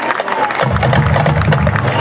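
Crowd applause and cheering as a marching band starts playing; low brass notes come in about two-thirds of a second in and carry on in a rhythm.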